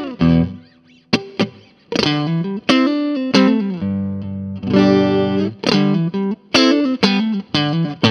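Electric guitar played through an Orange Crush Pro 60 amp's 12-inch Orange speaker, miked with a Shure SM57: a riff of sharply picked notes and chords, some ringing on for about a second.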